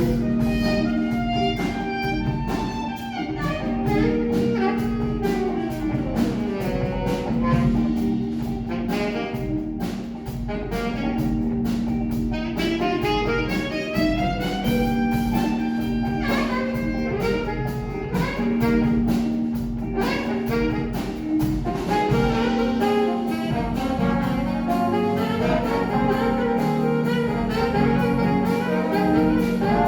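Jazz music led by brass and saxophone over a steady beat.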